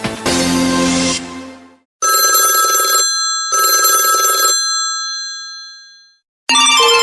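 Samsung Wave phone ringtones: an electronic tune fades out, then an old-style telephone bell ring sounds twice, each ring about a second long with a ringing decay. Another ringtone starts near the end.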